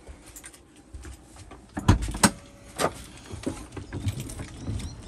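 Camper entry door being unlatched and opened, with a few sharp clicks and knocks about two seconds in, then footsteps and low thumps as someone steps out through the doorway.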